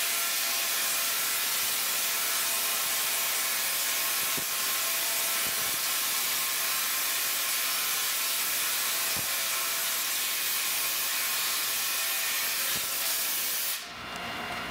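Large Tesla coil firing, its arcs striking the wire Faraday cage: a loud, steady hiss that cuts off suddenly about a second before the end.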